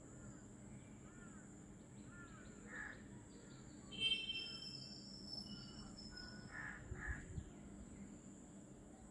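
Birds calling over a steady high-pitched insect drone: short chirps repeat every half second or so, a louder whistled call comes about four seconds in, and a few short harsh calls follow near the end.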